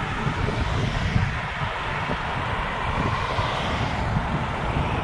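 Heavy special-transport convoy of trucks and escort vehicles driving past on the road: a steady rumble of engines and tyre noise.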